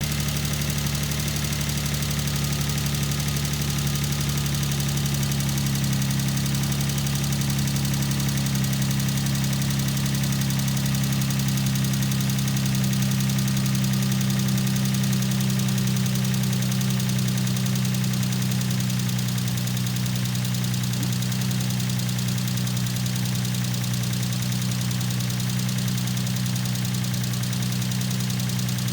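Infiniti G35's VQ35DE 3.5-litre V6 running steadily, with a tick from the top end that the owner takes for lifter tick.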